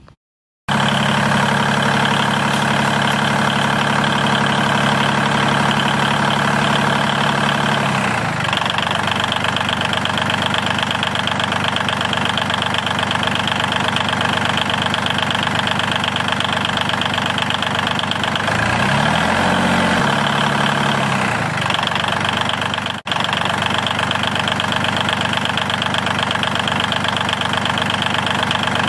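Engine-like idling sound with a steady, fast knocking rhythm, like a small diesel. It starts abruptly, dips and picks up in speed about two-thirds of the way through, and cuts out for an instant shortly after.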